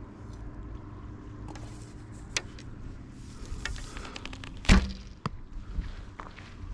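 A bow shooting an arrow: one loud, sharp thump about two-thirds of the way in, with lighter clicks and handling noise around it.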